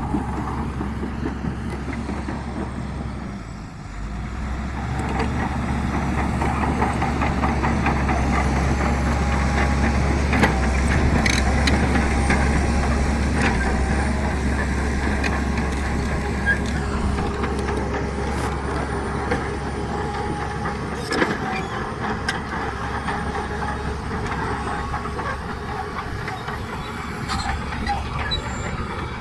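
Heavy diesel machinery running steadily, with a few sharp metallic clanks. The engine note dips about four seconds in, then swells and stays louder for several seconds, and the deep rumble eases around two-thirds of the way through.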